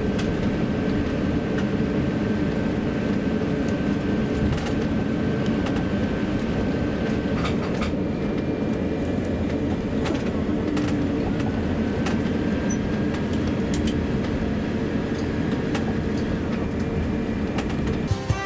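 Cabin noise inside an Airbus A350-900 taxiing after landing: a steady low rumble with a faint thin whine and a few light clicks.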